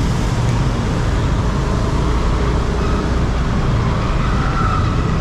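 Yamaha Aerox scooter's engine running steadily while riding, mixed with the noise of surrounding road traffic.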